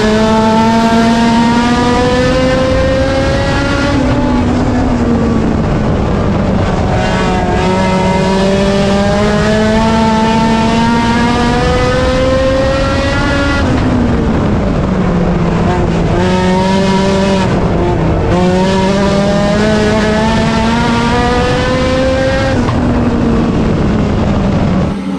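A single race car's engine at full throttle, heard close. Its pitch climbs for several seconds, drops back sharply, then climbs again, several times over, as the car accelerates and lifts off.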